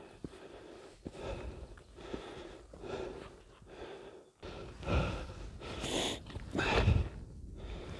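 A hiker breathing hard from exertion. The breaths grow louder from about five seconds in, three strong puffs about a second apart, as he scrambles up rock carrying a heavy pack.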